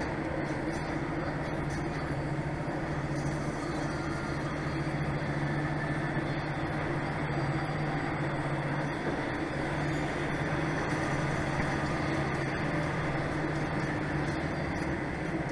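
Heavy truck's diesel engine droning at a steady pitch with tyre and road noise, heard from inside the cab while cruising.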